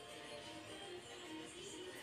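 Quiet background music with a gliding melody.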